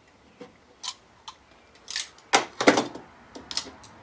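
Utility knife clicking and scraping as its blade trims raised melamine from around a screw hole in plywood: a run of sharp clicks and short scrapes, a few light ones first, then a louder cluster past the halfway point.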